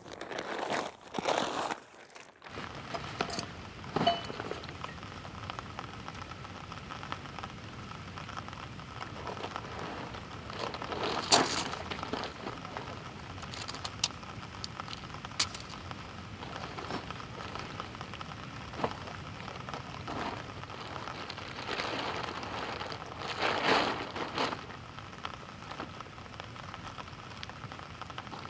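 Camping gear being handled: backpack and tent fabric rustling in short stretches, with a few sharp clicks and knocks, over a steady outdoor hiss. The louder rustling comes near the start, around the middle, and again a few seconds before the end.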